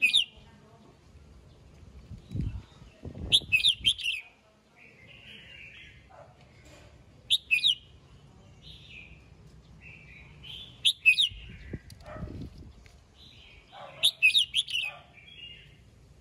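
Red-whiskered bulbul song: five loud, short whistled phrases a few seconds apart, with softer chattering calls in between.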